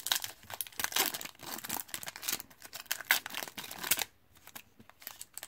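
Foil wrapper of a 2014 Topps Chrome football card pack crinkling and tearing as it is ripped open by hand: a quick run of crackles that dies down about four seconds in.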